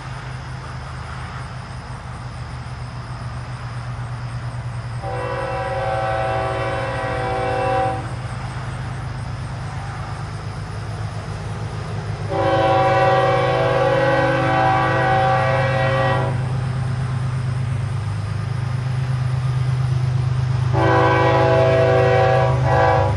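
Freight locomotive air horn sounding three blasts: two long ones about four seconds apart, then a shorter third near the end. Under them runs the steady low rumble of the approaching train, growing louder.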